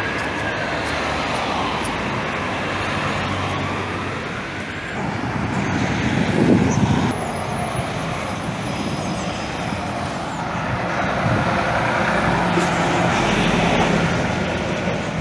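Fire engine siren wailing, rising and falling, and dying away after about four seconds, leaving steady street traffic with engines running.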